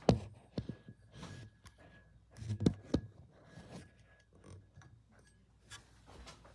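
A handful of irregular sharp knocks and clicks, the loudest right at the start and about two and a half seconds in, over a low steady hum.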